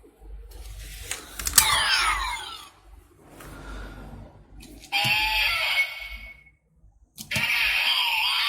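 Kamen Rider W Double Driver toy belt (ver 1.5) playing its electronic transformation sound effects through its small speaker. A click is followed by a quick run of falling tones, then two more loud bursts of belt sound effects about five and seven seconds in.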